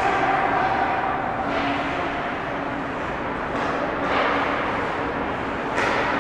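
Ice rink ambience during a hockey game: a steady rumbling hiss, with a few short scrapes of skates on the ice, the last and sharpest near the end, and faint distant voices.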